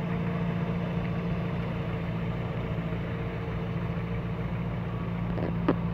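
UAZ off-roader's engine running steadily at low revs as the vehicle wades through a river, a constant low hum.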